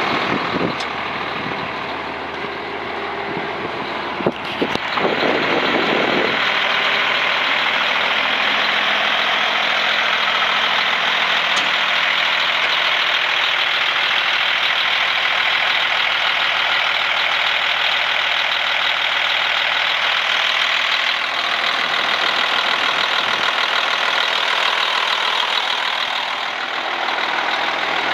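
2000 International 2574 dump truck's diesel engine idling steadily, with a sharp knock about four seconds in.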